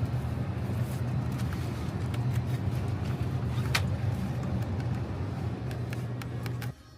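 Steady low rumble of a car driving, cutting off abruptly near the end.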